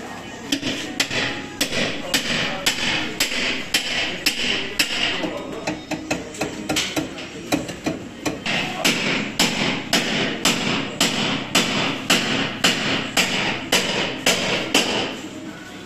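Hammer striking metal over and over, about two blows a second, each blow ringing briefly, with a short pause partway through.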